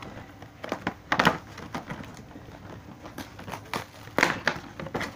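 Cardboard doll box with a clear plastic window being pulled apart by hand: irregular crinkling and tearing, with louder rips about a second in and again about four seconds in.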